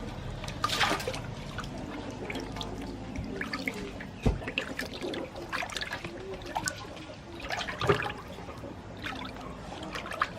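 Water trickling and splashing as raw pork is washed by hand, with irregular small knocks and clinks throughout.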